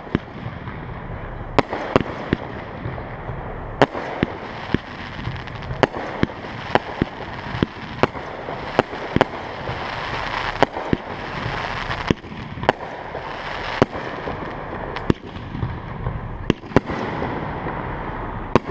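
Aerial fireworks display shells bursting in a rapid, uneven series of sharp bangs, about one or two a second, with steady noise between the reports.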